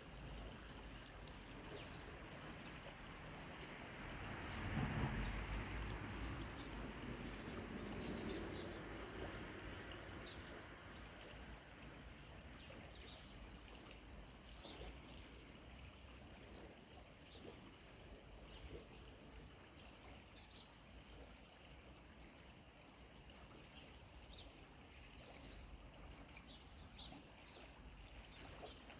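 Faint outdoor ambience: a steady rushing noise, swelling for a few seconds about five seconds in, with small birds giving short high chirps every few seconds.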